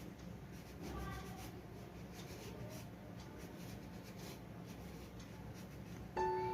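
Faint rubbing and scratching over a low steady hum; soft piano music comes in near the end.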